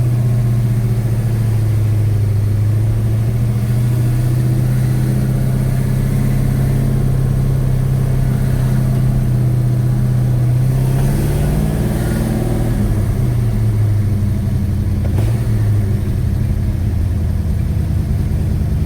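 1956 Chevy Bel Air's 307 small-block V8 running as the car drives off, a steady engine drone whose pitch shifts and wavers from about eleven seconds in.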